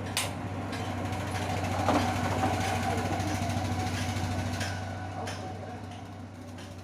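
Steady low mechanical hum with a few sharp clicks, fading out near the end.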